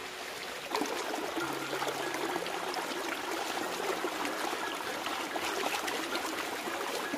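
Shallow stream water rushing and splashing over a rock as hands scrub the rock with a bunch of leaves. The splashing gets louder about a second in.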